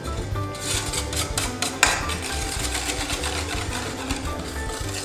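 Wire whisk beating eggs and milk powder in a stainless steel bowl, its wires striking and scraping the metal in a run of quick strokes about a second in, ending in a sharp clink, then lighter stirring. Background music with a steady bass underneath.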